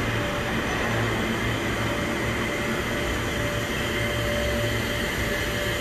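Steady hum and rushing noise of an underground subway platform, with a faint whine that comes and goes.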